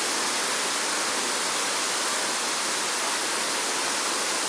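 Water pouring over a dam's weir as a waterfall: a steady, even rush.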